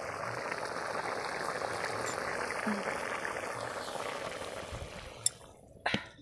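Curry boiling hard in a large steel kadai over a wood fire, a dense steady bubbling that dies away after about four seconds as the pan comes off the heat. A click and then a sharper knock near the end.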